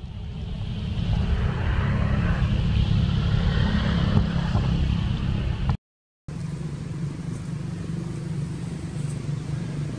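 Low, steady rumble of a running motor-vehicle engine. It cuts out suddenly for about half a second around six seconds in and then comes back as an even hum.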